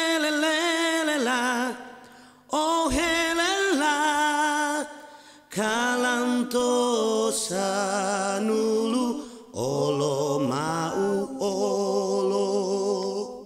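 Unaccompanied singing: long held, wavering notes in four phrases, with short pauses between them.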